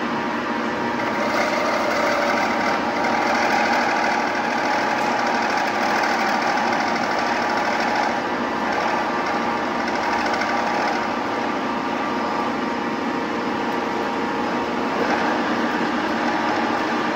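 Metal-working lathe running steadily, its motor and gears giving a set of steady hums and whines under a mechanical rattle. From about a second and a half in to about eleven seconds in, it grows louder and rougher.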